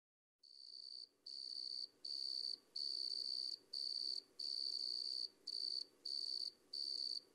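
Cricket chirping: a steady series of high, shrill trills, each lasting roughly half a second to a second with short pauses between, starting about half a second in out of dead silence.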